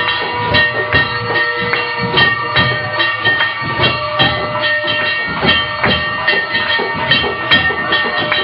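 Aarti percussion: temple bells ringing on and on over a steady beat of struck drums or cymbals, about three strikes a second.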